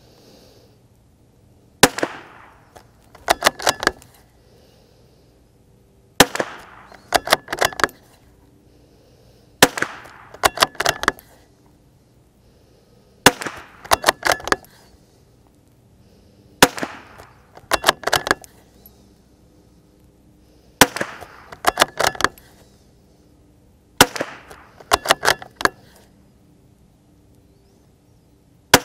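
Ruger American .22 LR bolt-action rifle firing about eight single shots, three to four seconds apart. About a second after each shot the bolt is worked, a quick run of four or five metallic clicks as the spent case is ejected and a fresh round chambered.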